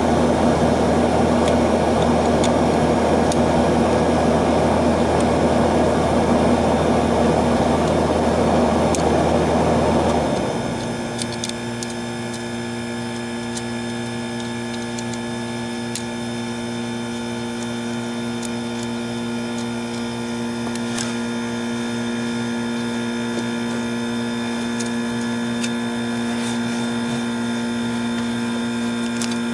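A nearby air-conditioning unit running, a steady rush of air over a low hum, shuts off about ten seconds in. After that a quieter steady hum remains, with light clicks and taps as a contactor and its wires are handled.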